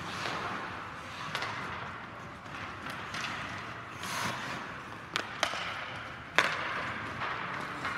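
Ice-hockey skate blades scraping and carving on the rink ice, with sharp clacks of sticks hitting the puck on passes: two close together past the five-second mark and a louder one about six and a half seconds in.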